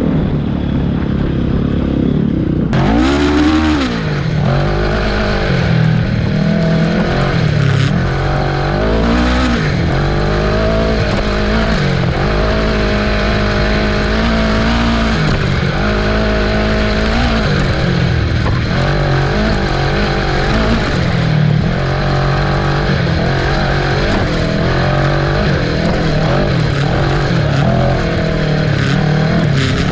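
Kawasaki Ninja 650 parallel-twin engine in an off-road go-kart, revving up and down continually as the kart is driven over rough ground. There is an abrupt change in the sound about three seconds in.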